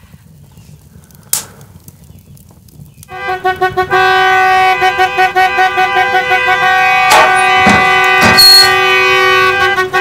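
Background score music comes in about three seconds in: a loud held chord that pulses quickly at first and then sustains, with a few soft hits near the end. Before it there is only quiet room tone and a single click.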